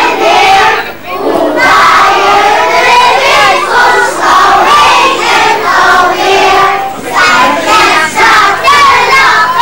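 A crowd of young children, many voices at once, loud and continuous, with a brief lull about a second in.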